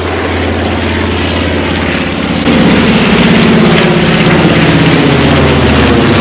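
Twin-engine World War II bomber flying low overhead, its piston engines and propellers making a pulsing drone that is pretty dang loud and grows louder about two and a half seconds in as the plane comes over.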